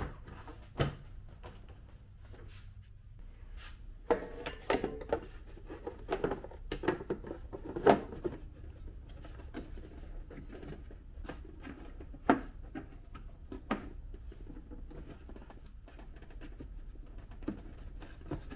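Hands fitting plastic parts on a Kawasaki Bayou ATV: scattered clicks, knocks and rattles of plastic, busiest from about four to eight seconds in, with a few single sharp clicks after that.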